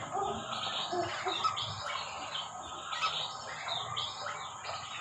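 Whistling ducks (belibis) calling: a continuous run of short, high calls, several a second.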